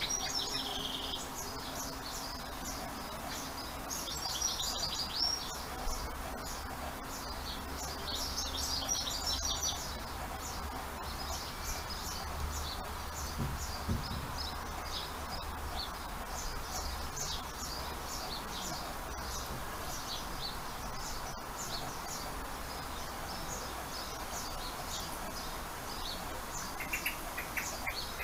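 Small songbirds chirping and singing on and off in the background, over a low steady rumble.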